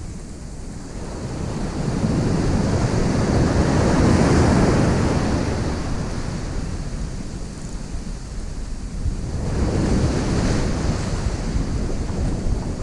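Ocean surf breaking and washing up a beach, swelling twice, about four seconds in and again near ten seconds, with wind rumbling on the microphone.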